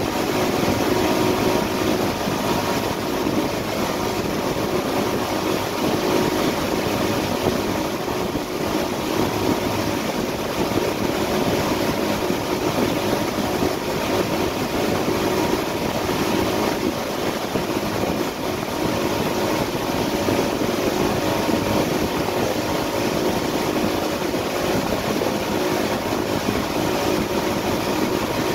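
A 2016 Yamaha AR240 twin-engine jet boat running steadily at wake-surf speed, its engine hum over the constant rush of the churning wake.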